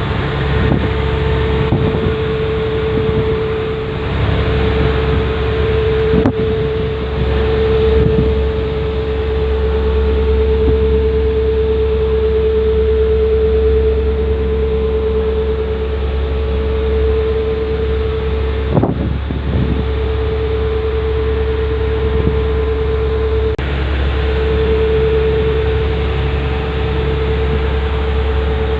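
Steel fishing trawler's engine running steadily, heard on board as a loud low rumble with a constant hum over it. The hum briefly drops out twice in the second half.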